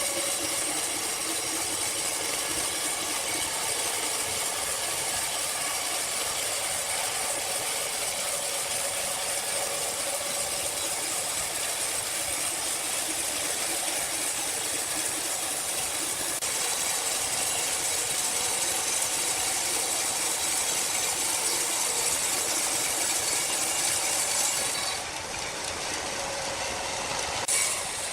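Sawmill machinery running steadily: a continuous mechanical hiss and hum, dipping slightly about 25 seconds in.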